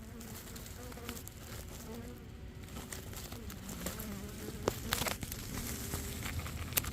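Honeybees of a live colony nesting in a hole in the ground buzzing, a low wavering hum. A few sharp clicks sound about five seconds in and again near the end.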